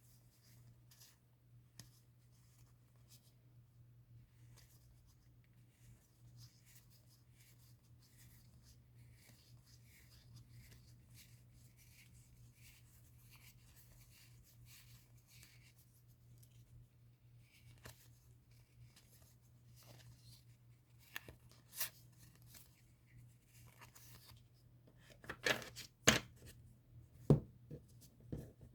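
Hands handling and unpacking a card-game box and its packaging: a stream of faint rustles and small clicks, then several sharper taps and snaps in the last seven seconds. A faint steady low hum runs underneath.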